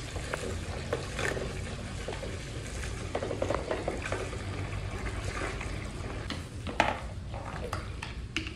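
Small hard objects clattering and clicking irregularly as they are handled, over a low steady hum.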